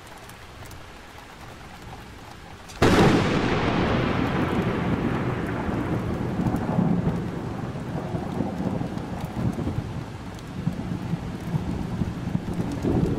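Thunderstorm: a low rumble, then a sharp thunderclap about three seconds in that fades into steady heavy rain, with low rolls of thunder swelling now and then.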